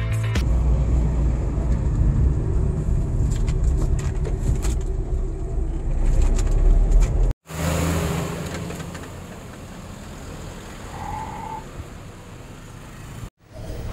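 Low road and engine rumble inside a moving car's cabin, with scattered clicks and rattles. It cuts off suddenly about seven seconds in and gives way to quieter, steady road noise from a car driving, with a brief tone near the end.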